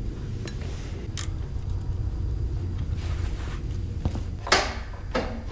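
Clicks and clinks of parts and tools being handled on a riding-mower engine, with one sharp metallic clank near the end, over a steady low rumble.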